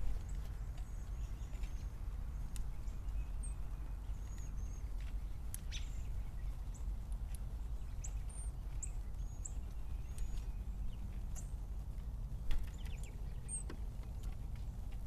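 Scattered short, high, thin bird chirps over a steady low outdoor rumble, with a single knock about twelve and a half seconds in.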